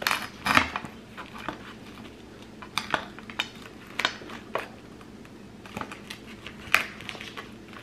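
A metal knife cutting a crispy-crusted pizza on a plate, the blade scraping and clicking against the plate in scattered, irregular strokes, the loudest about half a second in and again near the end.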